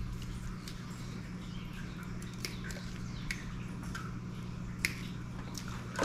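A few faint, scattered clicks of pliers and hookup wire being handled, with one sharper click about five seconds in, over a low steady hum.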